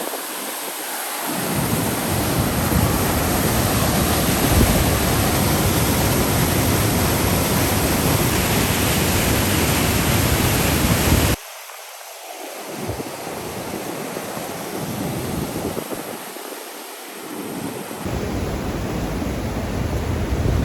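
Waterfall water rushing with wind buffeting the microphone in low rumbles. The sound drops suddenly about eleven seconds in to a quieter rush with gusts coming and going.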